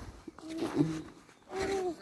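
A person's voice making two short held hoot-like calls, about half a second each, one near the middle and one near the end.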